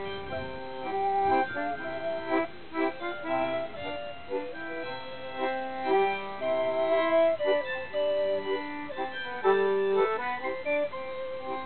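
Folk tune played on a small diatonic accordion together with a wooden end-blown pipe and a bowed string instrument, in a melody of held, stepping notes.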